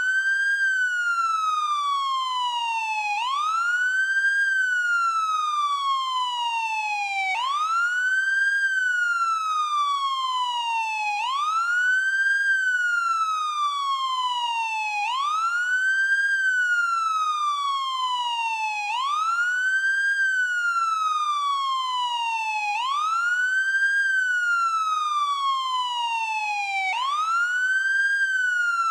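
Police car siren in wail mode: the tone rises quickly, holds briefly at the top, then falls slowly, repeating about every four seconds.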